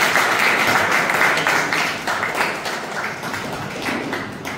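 A roomful of people clapping, dense at first and thinning out toward the end.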